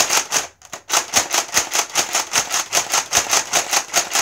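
Nerf Quick 16 blaster slam-fired empty: the priming handle is pumped rapidly back and forth with the trigger held, making a fast run of sharp plastic clacks, about five a second, after a few clacks and a short pause at the start.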